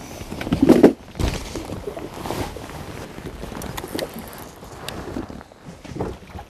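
Ambient sound aboard a small inflatable boat at sea: a steady rush of wind and water, with a louder low burst just before one second in and a few light clicks later.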